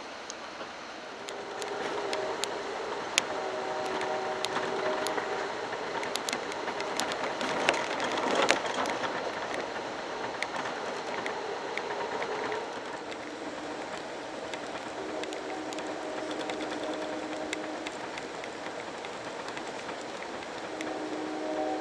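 Pacific Surfliner passenger train running at speed, heard from on board: a steady rumble with sharp clicks from the wheels on the rails. A multi-tone train horn sounds in long blasts several times, from about a second in and again near the end.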